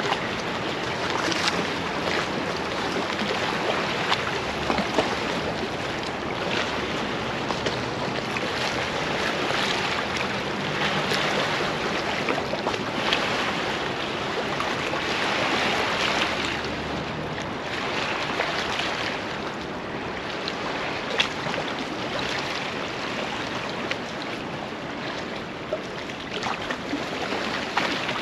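Steady rush of the flooded Androscoggin River's fast-moving high water along the bank.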